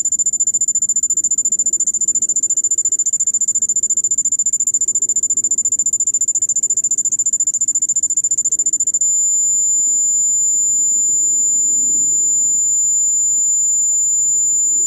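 Mini excavator's refuelling warning buzzer: a loud, high-pitched beep pulsing rapidly, several times a second, which about nine seconds in changes to one steady unbroken tone, the signal that the fuel tank is full.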